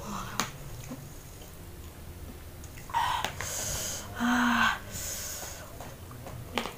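A woman's sharp, hissing breaths through the mouth, twice around the middle, the second with a voiced 'hah': panting from the burn of extra-spicy noodles. Short light clicks of a fork on the plate near the start and near the end.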